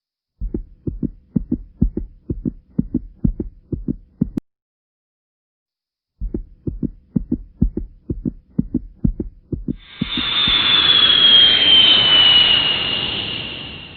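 Heartbeat sound effect: low, quick thumps in two runs of about four seconds with a short silence between. About ten seconds in, a loud rushing roar with a high whine that slowly falls in pitch swells up and then fades away.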